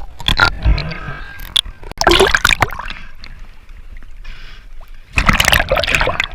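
Water splashing and sloshing in three bursts: about half a second in, around two seconds in, and again from about five seconds in.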